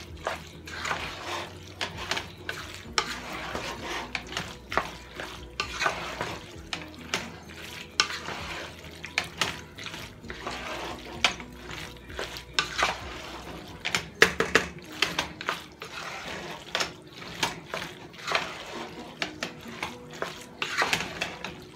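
Wooden spoon stirring thick, cheesy macaroni goulash in a pot: wet squelching of the pasta, with irregular knocks and scrapes of the spoon against the pot.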